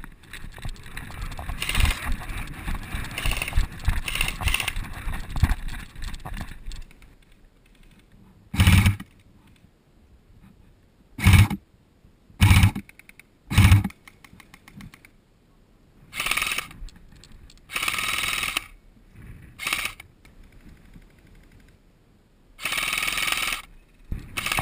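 Close, rustling movement with low thumps for the first several seconds, then airsoft guns firing a series of separate bursts, about eight in all, some single short cracks and a few rattling for about a second.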